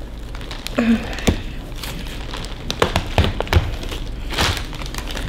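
A fondant cutter is pressed down through a block of soy wax, which cracks in several sharp clicks, with the plastic bag around the block crinkling.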